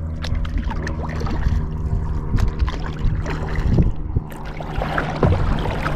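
Water splashing and dripping from kayak paddle strokes and lapping against the hull, in irregular splashes and ticks with a louder splash about four seconds in and another about five seconds in, over a steady low rumble.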